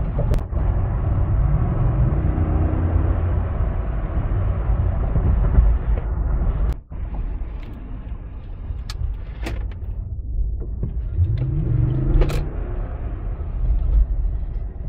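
Cabin noise inside a Lexus GX 460 under way: steady low road and engine rumble, with the 4.6-litre V8 rising in pitch as it accelerates, twice. A few light clicks break in.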